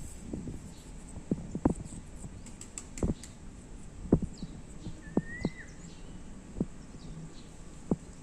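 Irregular soft knocks and thumps, about eight in all, with faint high chirps from a pet conure parrot and one short whistle from it about five seconds in.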